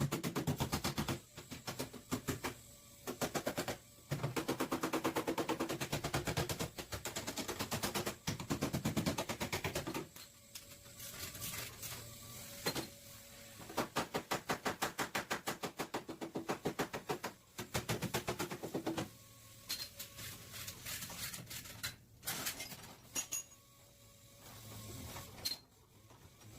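Bursts of rapid metal impacts, about ten a second, from a power tool working the car's back-panel sheet metal, stopping and starting several times.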